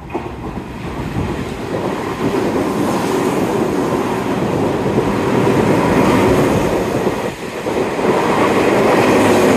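A Tobu Skytree Line electric commuter train running through the station without stopping. Its wheels and motors grow louder as the cars pass close by, with a brief dip about seven seconds in.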